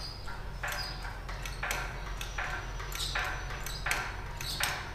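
Hand pump of a hydraulic engine hoist being worked stroke by stroke to lift an aircraft engine. Each stroke gives a short rasp, some with a high metallic ping, about one to two strokes a second.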